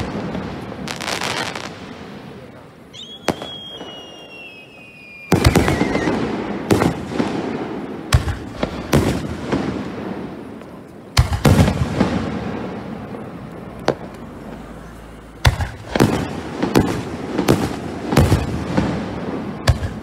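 Aerial fireworks shells launched and bursting at close range, a rapid series of sharp bangs through the whole stretch, with a whistle that falls in pitch about three seconds in.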